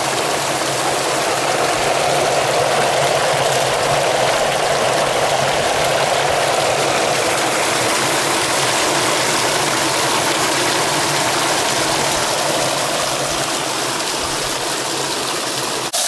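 Water rushing and splashing steadily through a small Archimedes screw turbine, with a steady mechanical hum from the screw and the induction generator it turns.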